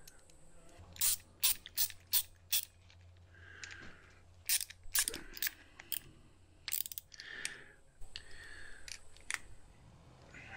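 Hand ratchet wrench clicking in short runs of sharp clicks while a nut is turned on a diesel fuel shutoff solenoid.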